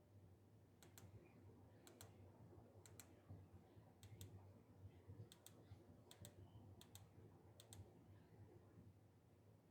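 Faint, sharp clicks, mostly in close pairs and coming about once a second: the buttons of a 12-gang switch panel being pressed to change the light modes.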